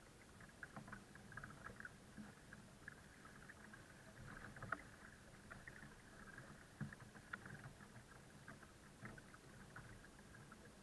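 Faint water trickling and lapping in small irregular ticks against the bow of a folding kayak as it is towed slowly through calm water.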